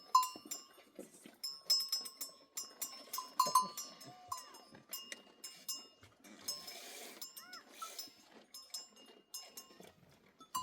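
Bells hung on a flock of sheep and goats clinking and ringing irregularly as the animals move and graze.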